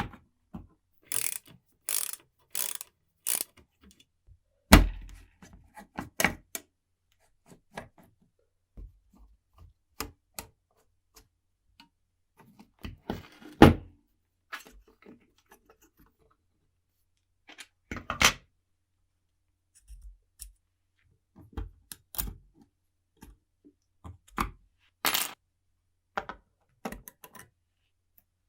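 Scattered clicks, taps and knocks of small metal parts and tools being handled during work on a rusty old mechanical alarm clock. There are four short scraping strokes near the start and two louder knocks, the loudest about halfway through.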